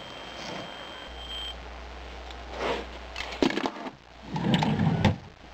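A wooden bedside-table drawer being opened and its contents handled: a short scrape, a few sharp clicks and knocks, then a louder scraping shuffle lasting about a second near the end.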